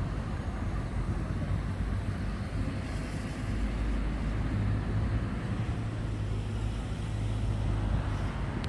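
Low, steady vehicle rumble with a hum that grows stronger from a few seconds in until near the end.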